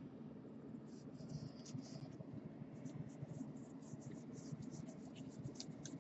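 Trading cards being flipped through by hand, one card slid off the stack after another: faint, quick scratchy flicks of card stock rubbing on card stock.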